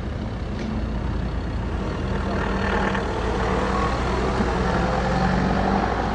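A safari vehicle's engine running steadily at a low hum, getting slightly louder over the few seconds.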